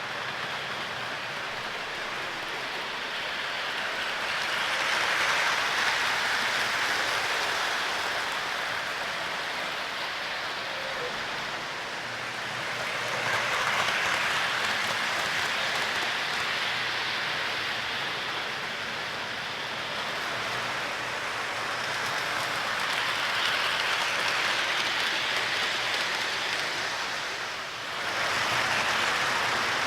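O gauge model train rolling over three-rail track: a steady rushing rattle of metal wheels on the rails that swells and fades several times as it circles past.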